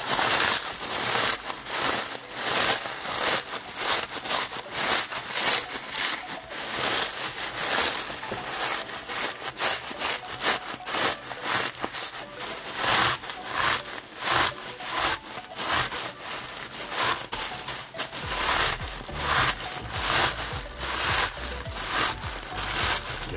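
Cornflakes crushed by hand inside a plastic bag: repeated crunching and crackling of the flakes with rustling of the bag, a few squeezes every second.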